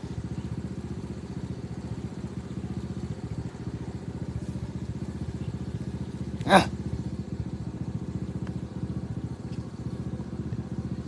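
An engine running steadily at idle, a continuous low hum. About six and a half seconds in, a single short, loud, high-reaching sound cuts across it.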